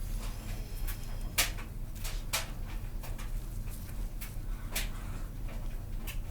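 A brass Zippo lighter being buffed by hand with a cloth: brief scattered rubbing and tapping sounds at an uneven pace, the sharpest about a second and a half in.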